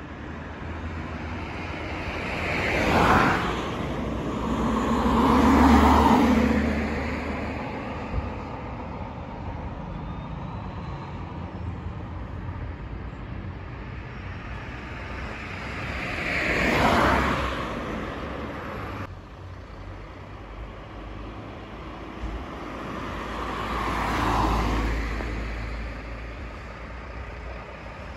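Road traffic: vehicles passing one at a time, the tyre and engine noise swelling and fading about four times, the second pass-by with a heavier low engine hum.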